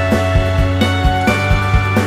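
Background music: held chords over a steady beat.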